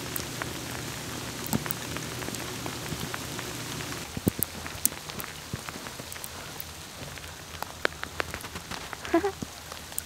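Snow pellets (graupel) coming down hard, a dense patter of small ticks and taps. A low steady hum runs under it and stops about four seconds in. A brief squeak comes near the end.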